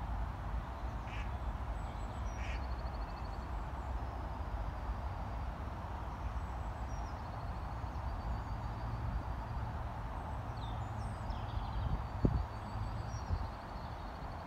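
Steady low rumble of wind noise, with wild birds calling in short high chirps and trills over it, and one dull thump near the end.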